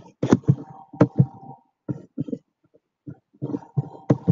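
Quick irregular taps and clicks on a computer keyboard and mouse, with a short lull in the middle, while the slideshow is advanced.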